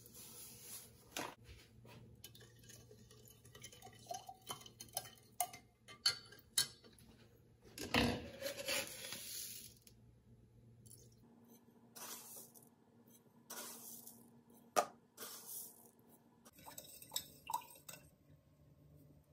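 Juice poured into a glass jug, loudest near the middle, then a spoon stirring it and clinking against the glass in separate knocks.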